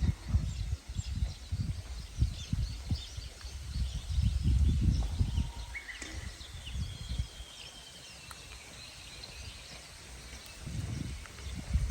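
Japanese bush warbler (uguisu) and other small birds singing and chirping, with a longer drawn-out phrase about halfway through, over an irregular low rumbling on the microphone.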